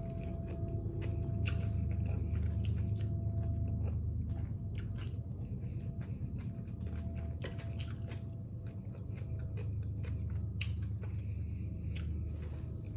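Close-miked chewing of a chicken burrito in a soft flour tortilla: wet mouth smacks and clicks throughout, over a steady low hum.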